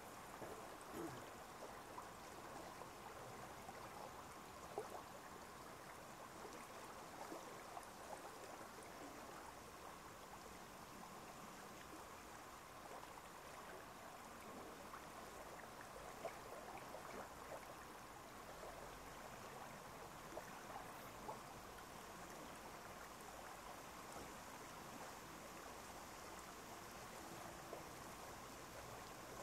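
Faint, steady trickle of running water, with a few brief louder drips here and there.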